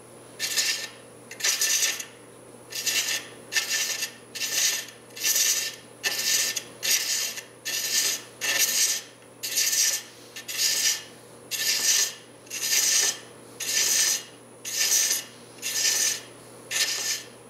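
Hand thread chaser (16 TPI) cutting male threads in wood spinning on a lathe: a regular series of short scraping cuts, about one pass a second. Under them runs the lathe's steady low hum.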